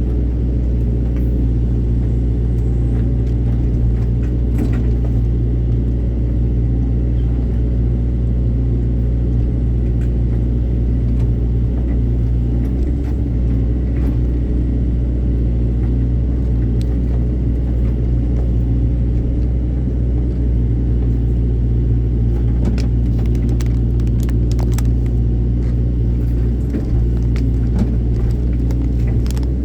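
Excavator's diesel engine running steadily under work, a loud low drone with scattered short clicks and knocks, most of them a little over twenty seconds in.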